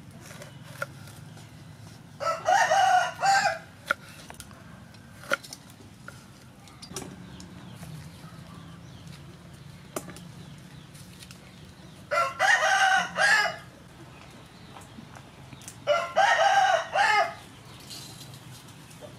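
A rooster crowing three times, each crow about a second and a half long. A few sharp knife taps on a wooden cutting board fall between the crows.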